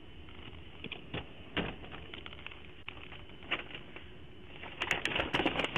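Scattered light clicks and taps, with a quick flurry of sharp clicks near the end, over a faint steady low hum.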